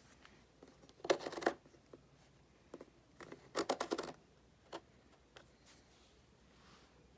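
Quiet handling noise: two short bursts of rapid clicking and rattling, about a second in and again near the middle, with a few single clicks between. No motor is running.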